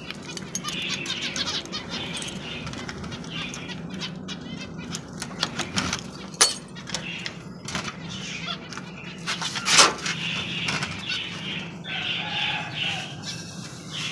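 Cage birds flapping their wings inside a netted aviary, in repeated short flurries with a few sharper bursts.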